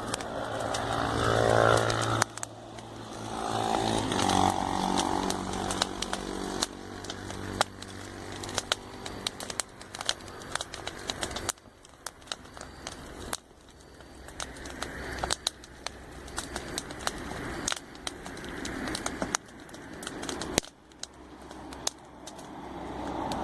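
Campfire crackling, with frequent sharp pops, while vehicles pass on the road, their engine hum swelling and fading several times.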